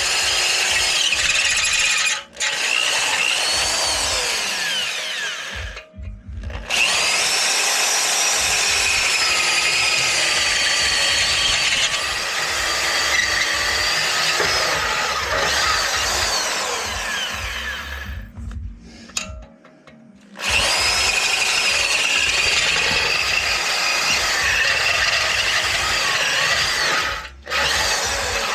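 Power drill boring through the catalytic converter inside a motorcycle exhaust, the bit screeching against the metal in high wavering tones. It runs in long stretches, stopping briefly about two seconds in, about six seconds in, for a couple of seconds about two-thirds through, and again near the end.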